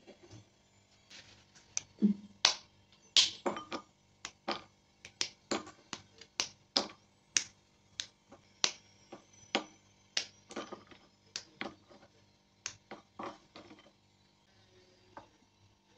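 A chocolate bar being broken into squares by hand, the pieces dropped into a ceramic bowl: a string of sharp snaps and clicks, about one to two a second, stopping near the end.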